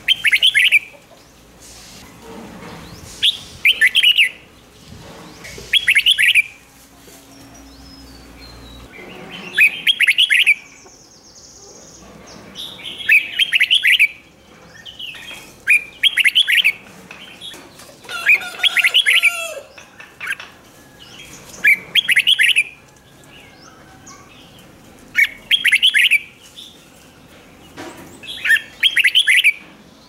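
Red-whiskered bulbul singing short, quick phrases again and again, about ten times, one every few seconds.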